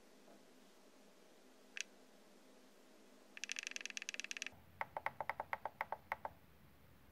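Jumper T12 radio transmitter clicking and beeping as its frequency-tune value is stepped rapidly upward: a single click about two seconds in, then a fast run of about a dozen high, sharp clicks, then a run of about ten lower-pitched beeps ending just after six seconds.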